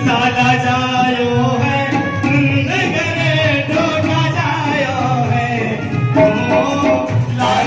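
Indian devotional song: a singing voice carries a gliding melody over instruments and a steady, evenly repeating percussion beat.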